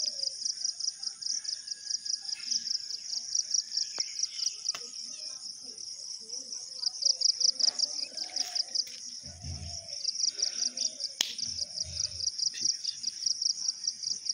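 Insects trilling steadily, a high-pitched, fast-pulsing chirr, with a few faint low bumps about two-thirds of the way in.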